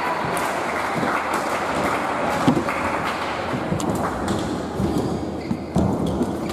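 Badminton rally in an indoor hall: a few sharp racket hits on the shuttlecock and players' shoes thudding on the court mat, over a steady background hiss.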